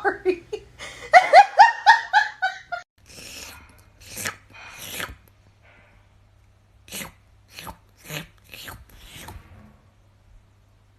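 A person laughing in quick bursts, then wet slurping and licking noises made with the mouth in imitation of a cat grooming itself: a couple of longer slurps, then about five short smacks roughly half a second apart.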